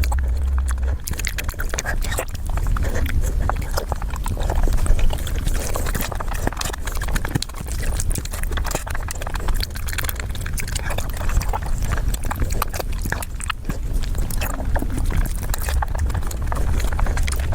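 Close-miked eating: rapid wet chewing and mouth clicks, over a steady low hum.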